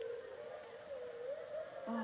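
A pack of wolves howling: one long, held howl that wavers gently in pitch, with a shorter, lower howl joining near the end.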